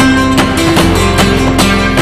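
Background music: a guitar-led instrumental with plucked notes on a steady beat over a strong bass line.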